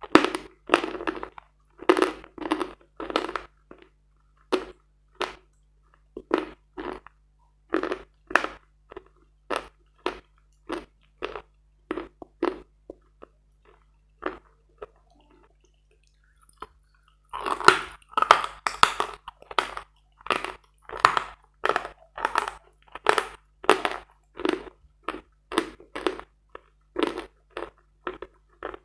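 Hard chalk being chewed close to the microphone: a run of dry, sharp crunches, one or two a second. The crunching thins out to a few faint ones for several seconds past the middle, then comes back quicker and louder.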